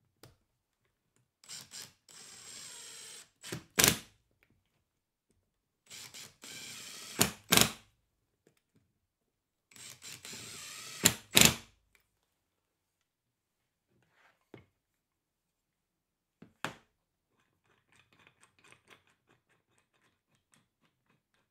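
A drill-driver driving three wood screws into a hardwood base, three times over: a short steady whir that ends each time in one or two loud sharp clicks. Later come two short wooden knocks and a faint patter of ticks.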